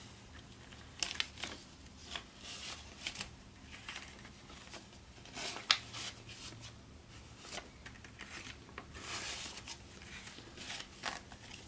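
Paper banknotes rustling and flicking as a stack of bills is counted through by hand, in short irregular crisp flicks, with one sharper snap about halfway through.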